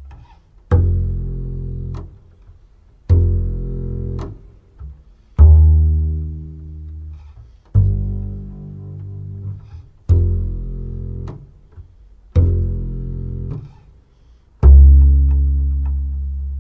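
Double bass plucked in slow, single low notes, seven in all, about one every two and a quarter seconds, each struck sharply and left to ring and fade.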